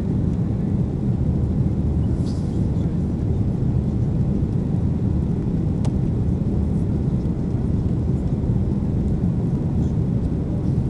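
Steady low rumble of a Boeing 747-400's jet engines and rushing airflow, heard inside the passenger cabin during the climb after take-off.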